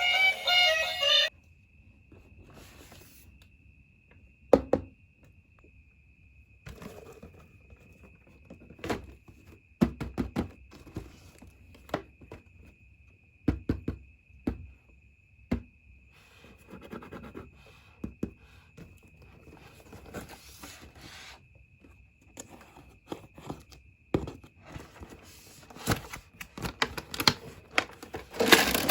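Background music that cuts off about a second in, then irregular clicks, knocks and scrapes of small plastic parts and packaging being handled, over a faint steady high whine.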